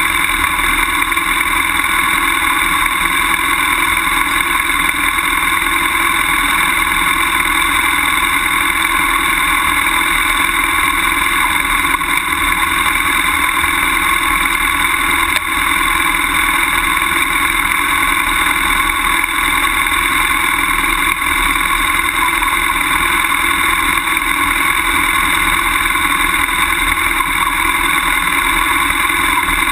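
BMW F800GS motorcycle's parallel-twin engine running at steady revs while the bike rolls down a grassy, gravelly trail, with no rise or fall in pitch.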